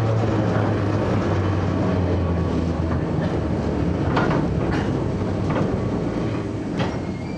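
Enshu Railway 30 series electric train with nose-suspended traction motors, heard from on board. The motors and gears keep up a steady low hum, the wheels click over rail joints a few times, and the sound eases slightly toward the end.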